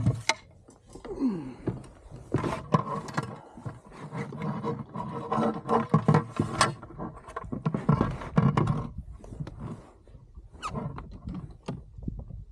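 Irregular knocks, thunks and clatter of fishing gear being handled and stowed in a plastic kayak, with a busier run of rummaging and rustling through the middle.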